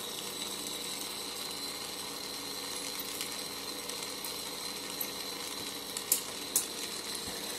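Steady hiss of a Carlisle CC glassworking torch's flame burning, with two light clicks about six seconds in.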